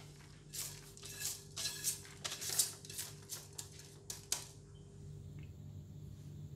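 Crispy fried garlic bits scraped off a plate with a silicone spatula and scattering onto a fried fish on a ceramic plate: a run of short scraping, pattering strokes for about four seconds, then only a faint steady hum.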